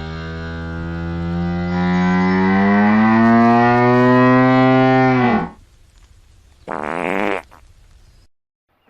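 Hippopotamus calling: one long, pitched moan of about five seconds that rises a little in pitch partway through, then a short, rougher call about seven seconds in.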